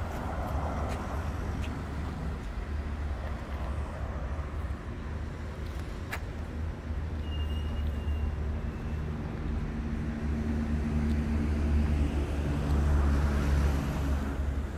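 A heavy vehicle's engine running steadily with a low rumble, growing louder through the second half, over the noise of road traffic passing near the start and near the end. A single sharp click sounds about six seconds in.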